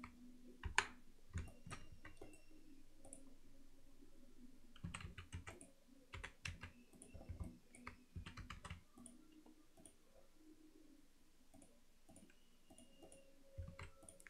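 Faint, scattered clicks of a computer keyboard and mouse in use, a few at first and then a quick run of clicks through the middle, over a faint steady hum.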